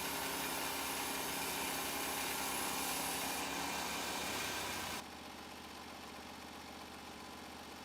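Band sawmill's gasoline engine running steadily. About five seconds in the sound drops sharply to a quieter, steady engine run.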